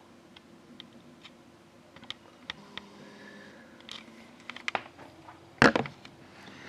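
Irregular light clicks and taps, with one louder sharp knock about five and a half seconds in.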